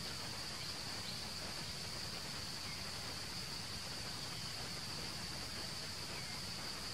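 Forest ambience: a steady, high-pitched insect drone over a constant hiss, with a few faint chirps.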